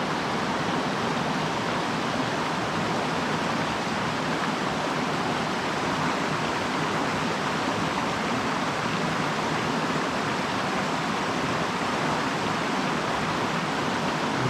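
Mountain stream water rushing steadily over rocks, an even wash of sound that does not change.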